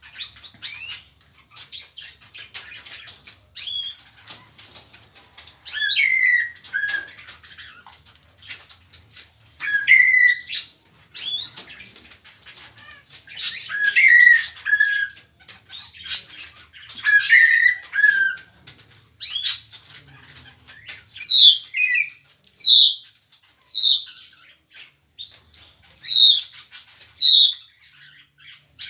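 Tropical mockingbird singing: varied phrases every few seconds, many ending in a downward slur. Near the end they give way to a string of loud, clear notes about one a second, each falling steeply in pitch.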